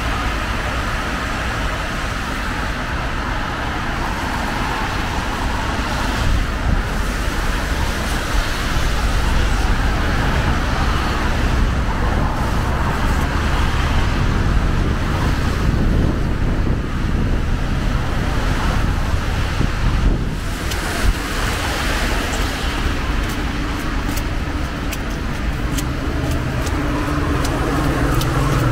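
Steady road traffic: cars driving along a rain-wet multi-lane city street, swelling a little as vehicles pass.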